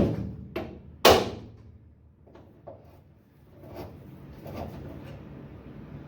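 Hammer striking a hand impact driver set in a stuck VW door hinge screw: three sharp blows in the first second or so, then a few fainter knocks and clinks.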